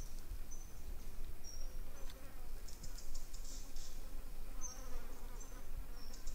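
Insects chirping: short, high-pitched chirps repeating every second or so over a steady low rumble.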